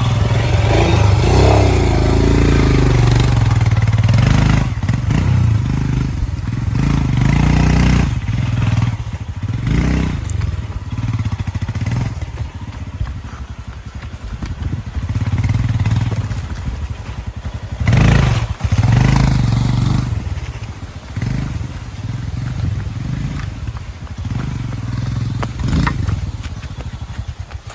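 Royal Enfield Himalayan single-cylinder motorcycle being ridden over a rough off-road track. The engine note rises and falls with the throttle, and knocks and clatter come from the rocky ground.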